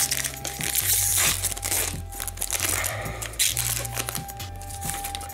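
Foil wrapper of a hockey card pack crinkling as it is torn open and the cards are slid out, over background music with a low bass line.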